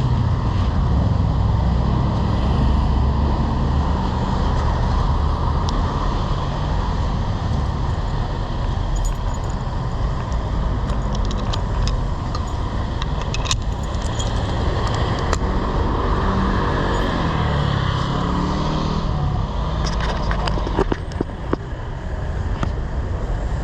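Road traffic and a steady low rumble of wind on the microphone while cycling, with scattered light rattling clicks.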